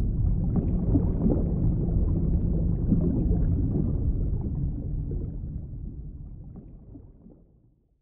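Underwater ambience: a low, steady rumble of sea noise with faint scattered clicks and crackles, fading out over the last few seconds.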